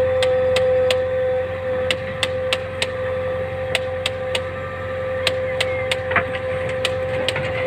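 Heavy machinery running with a steady high whine over a low rumble, the sort of whine a JCB 3DX backhoe loader's engine and hydraulics give while working, with irregular sharp clicks and knocks through it.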